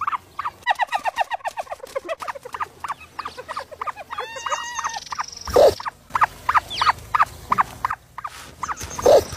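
Ostrich chicks peeping: rapid short chirps, several a second, with a run of falling chirps in the first couple of seconds. Two low thumps cut in, the louder one about five and a half seconds in and another near the end.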